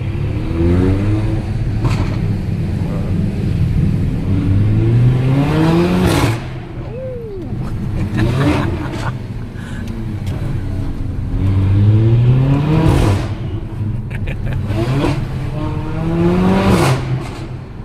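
Mercedes-AMG GLA 45's turbocharged four-cylinder accelerating hard through the gears. The engine note rises, then drops sharply at each upshift with a crack from the exhaust, three strong pulls about 6, 13 and 17 seconds in.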